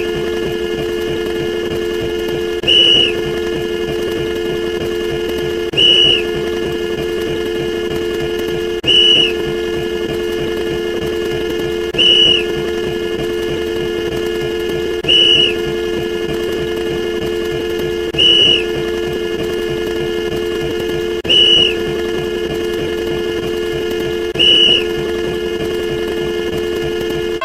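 A looped sound effect: a steady whistle-like drone of several held tones, with a short louder high tone about every three seconds, eight times.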